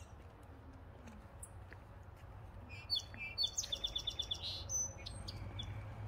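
A bird calling: a quick run of high chirps about three seconds in, ending in a rapid string of short repeated notes.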